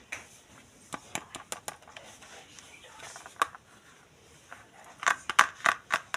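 Hands handling plastic toy packaging: scattered clicks and taps, with a quick run of louder clicks near the end.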